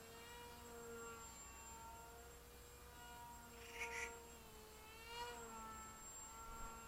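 Distant buzzing whine of a small foldable flat-plate RC airplane's electric motor and propeller, its pitch wavering slowly as the plane flies. A brief, louder burst of higher-pitched noise comes about four seconds in.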